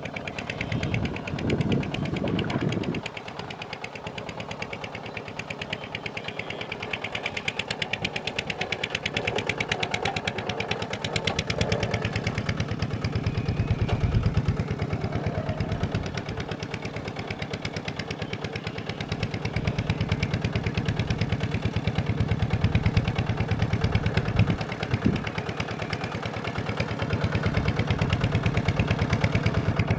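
Small Kubota single-cylinder diesel engine running with a rapid, even firing beat, its level swelling and easing a little.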